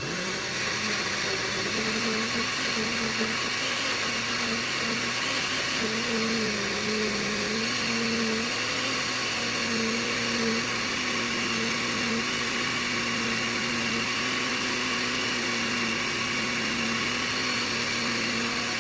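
Electric blender switching on and running steadily, pureeing onion, garlic and apple. Its motor hum wavers slightly in pitch.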